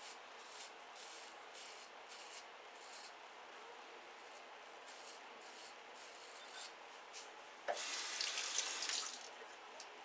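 A Turkish shavette's half blade scraping stubble and lather off the neck in a run of short strokes. Near the end comes a loud burst of running tap water lasting about a second and a half, rinsing the blade.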